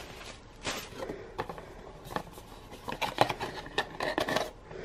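Small cardboard product boxes being handled: scattered taps and scrapes, then a quick run of clicks and rustles in the last second and a half.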